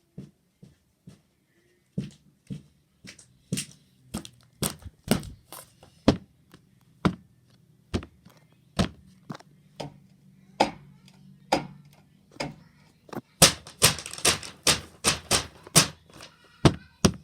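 A series of sharp knocks, uneven at first at about two a second, then coming quicker and louder near the end, over a faint low hum.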